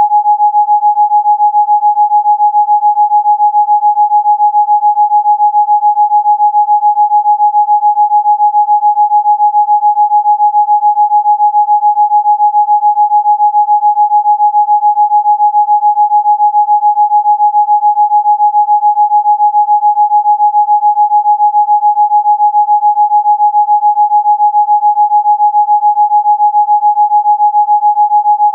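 A single steady, mid-pitched electronic sine tone, loud and unchanging in pitch, with a fast, even flutter in loudness: a generated 'Rife frequency' tone of the kind played for chicken pox relief.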